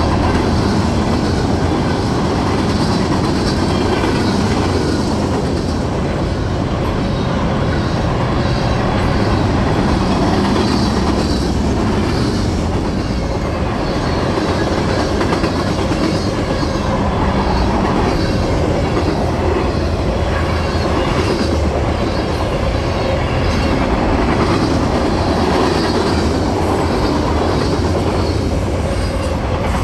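Freight train cars rolling past: a steady rumble of steel wheels on rail, with a rhythmic clickety-clack over the rail joints and a faint wheel squeal now and then.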